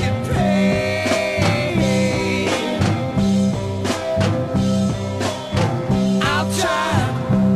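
Late-1960s psychedelic rock recording: electric guitar lines bending and wavering over bass and a drum kit keeping a steady beat.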